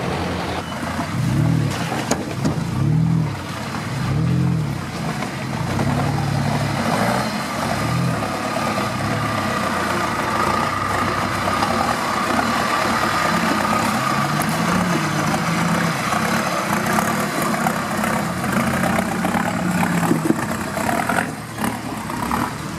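UAZ 469 off-road vehicle's engine revving in short repeated bursts about every second and a half, then running on under load with slower rises and falls in pitch.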